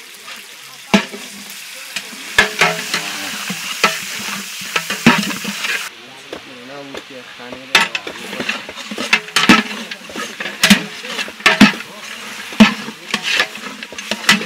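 Buffalo meat frying and sizzling in a large aluminium pot while a long-handled ladle stirs it, knocking and scraping against the pot's sides in quick, uneven strokes. The sizzling drops away about halfway through, leaving the knocks.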